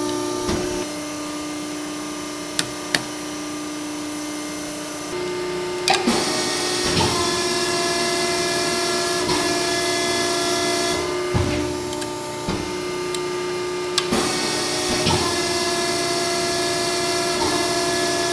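Wysong hydraulic press brake running: its hydraulic pump gives a steady hum and whine that changes in tone every few seconds as the ram cycles. Two sharp clicks come a few seconds in, and several clunks follow in the second half.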